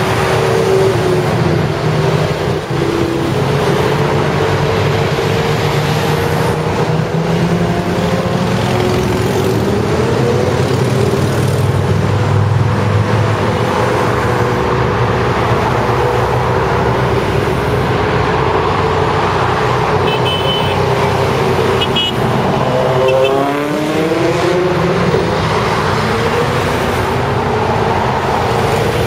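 Motorcycle engines and motorway traffic passing below, a steady, loud mix of engine drone and tyre noise. About three-quarters of the way through, several engines rise in pitch together as bikes accelerate away.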